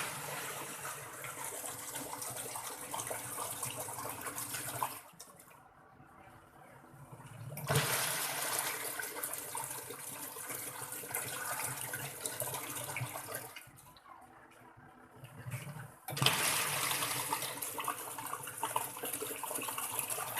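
Single-tub washing machine churning water in the tub: three spells of rushing water several seconds long, each stopping for a couple of seconds before the next starts.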